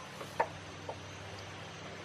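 A few light clicks and taps from hand work on the car's fuel line parts, one sharper click about half a second in, over a steady low hum.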